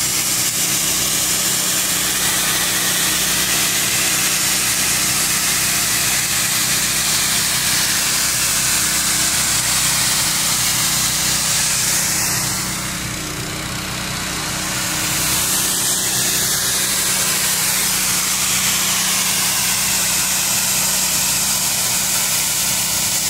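Hot water pressure washer running steadily: a low machine drone under the loud hiss of the high-pressure spray jet striking a concrete floor. The hiss drops briefly around the middle, then returns.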